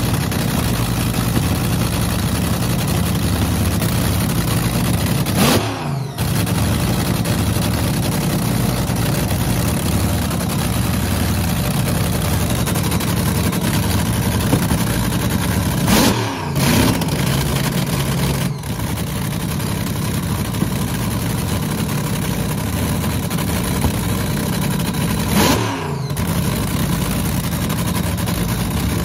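Ford 427 SOHC 'Cammer' V8 in a dragster idling steadily, blipped three times: each time the revs rise sharply and fall back to idle within about a second.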